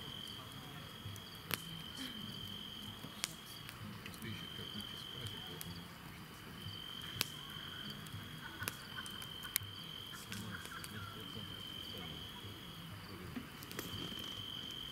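Crickets trilling in repeated stretches of a second or two, with a few sharp crackles and pops from a campfire.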